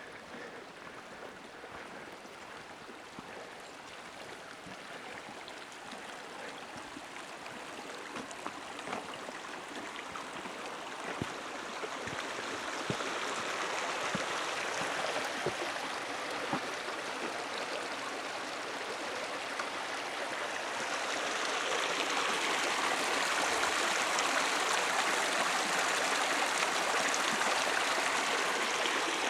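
A small mountain creek running: a steady rush of water that grows louder as it goes, with a step up about two-thirds of the way through.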